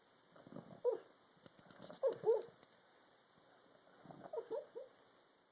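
Pit bull whimpering in its sleep while dreaming, in three short bouts of high, wavering whines.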